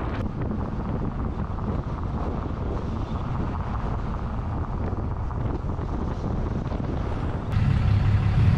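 Wind buffeting a camera mounted on the outside of a moving pickup truck, over road and tyre noise. Near the end the sound switches abruptly to a louder, steady low hum.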